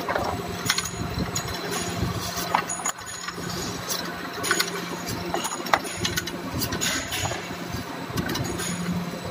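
Horizontal-spindle duplex surface grinding machine running with a steady hum, with irregular sharp metallic clicks over it.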